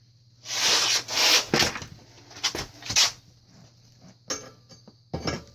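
Metal scraping and rubbing as a replacement fork's stem is pushed and worked against a mountain bike's head tube and bearings, in several loud rasping strokes over the first three seconds, then a couple of sharp knocks. The stem is too big to fit.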